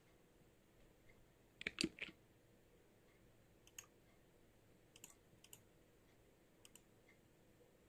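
Faint computer input clicks. A quick cluster of three about two seconds in is the loudest, then single and paired mouse clicks follow.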